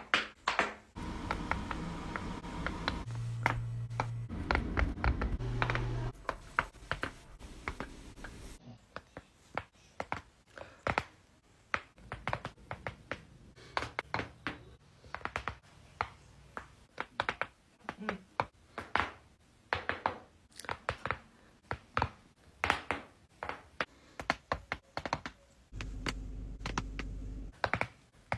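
Neck joints cracking and popping under repeated adjustments: many sharp cracks, sometimes several in quick succession and sometimes single, over a low steady hum in the first third and again near the end.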